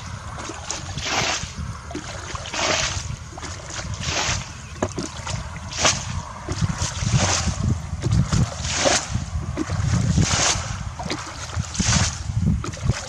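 Water splashing in regular strokes, about one every one and a half seconds, over a steady low rumble.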